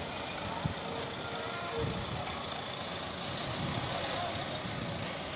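Steady outdoor din of motor vehicles: motorbikes and tour buses moving and running in a parking area, with a low uneven rumble underneath.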